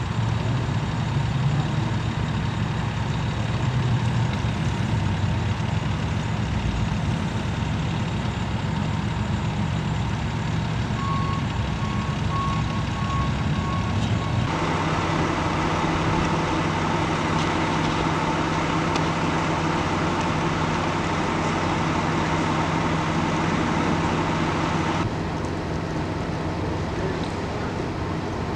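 Heavy emergency vehicles' engines idling with a steady rumble. About eleven seconds in, a run of short high beeps, about two a second, sounds for around three seconds.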